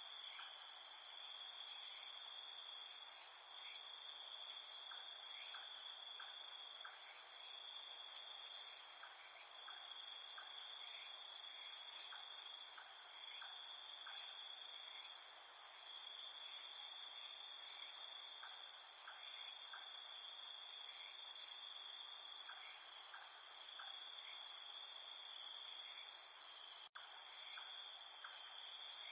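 A chorus of crickets and other insects, a continuous high-pitched trill that holds steady throughout, with faint short chirps scattered through it. The sound cuts out for an instant near the end.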